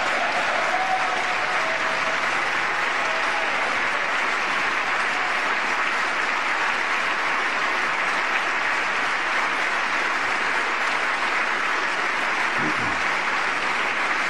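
An audience applauding, a long steady round of applause after a line in a speech.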